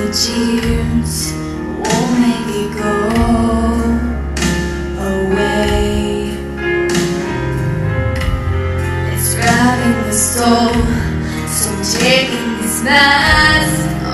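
A solo female voice singing a slow ballad into a handheld microphone over instrumental accompaniment, in phrases with short pauses between, above steady low bass notes.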